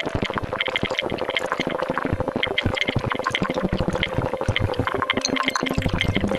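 Experimental film soundtrack: a dense, fast crackle of clicks over a steady drone, with short high blips scattered through it.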